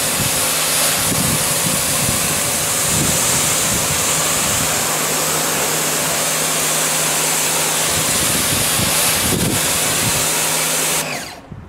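Electric pressure washer spraying a fence: a loud steady hiss of the high-pressure jet over the even hum of its pump motor. Both stop suddenly near the end as the trigger is released.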